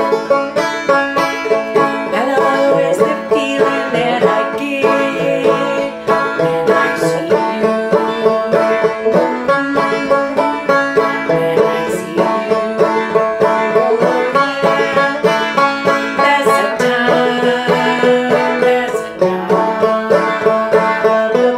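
Open-back banjo played clawhammer style in standard G tuning: a steady, rhythmic run of plucked notes and brushed strums.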